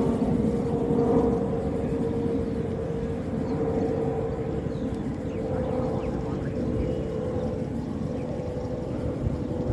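A steady, slightly wavering engine-like drone over a low rumble, like a distant motor.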